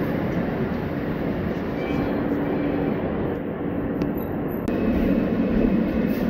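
R160 subway car running on the N line, heard from inside the car: a steady rumble of wheels on rail with a low hum, growing louder about three-quarters of the way through.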